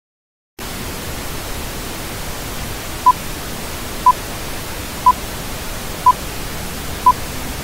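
Steady static hiss with a film-leader countdown beep: a short, high, single-pitch beep once a second, five in all, starting about three seconds in. The hiss starts about half a second in.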